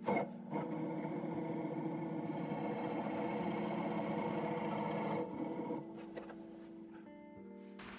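Wood lathe running at about 400 RPM, with the Robert Sorby spiralling tool's 2 mm spiral cutter wheel held against the spinning wood: a steady mechanical whir. About five seconds in it drops to a quieter steady hum.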